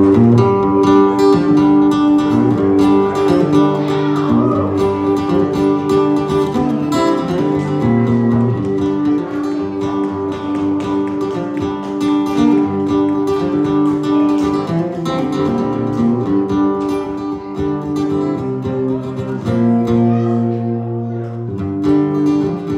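Acoustic guitar played live, strumming chords in a steady rhythm in an instrumental passage with no singing.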